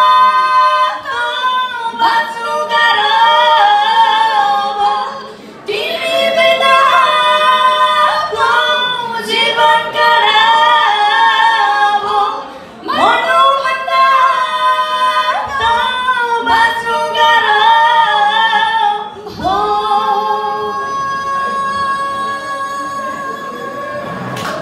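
Women's voices singing live on stage, with little or no instrumental backing, in phrases of several seconds that end on a long held note.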